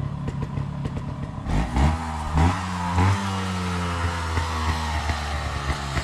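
Trail motorcycle engine running close by: it comes in about a second and a half in with a few short throttle blips, then settles into a steady idle.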